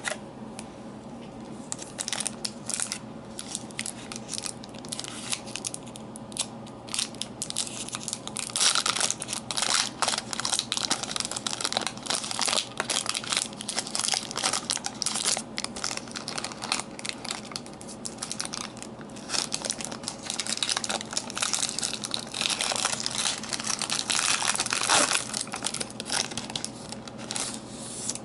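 A trading card pack's wrapper crinkling and tearing as it is worked open by hand, with cards being handled near the end.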